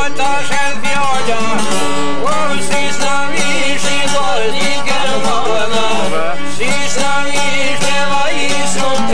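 Folk music on long-necked plucked lutes, a quick run of plucked notes, with a man's voice singing over them.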